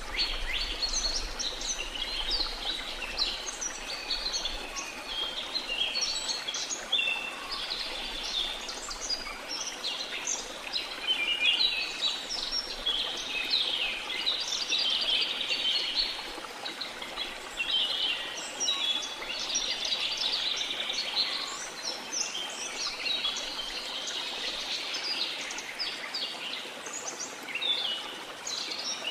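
Many birds chirping and calling at once, a dense overlapping chorus of short high chirps and trills, over a steady rush of falling water.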